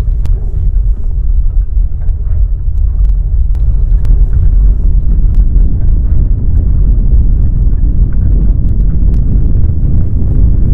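Loud deep rumble of earthquake shaking, with scattered sharp knocks and rattles on top. It growing a little stronger over the first few seconds, then holds steady.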